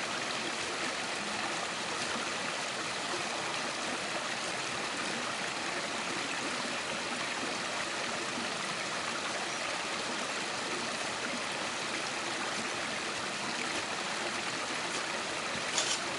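Steady rushing of a flowing river. A couple of short sharp clicks come near the end.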